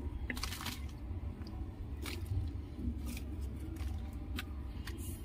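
Dry compost crumbling and pattering as it is scattered by hand onto the soil of a plant pot, heard as several short rustles over a steady low rumble.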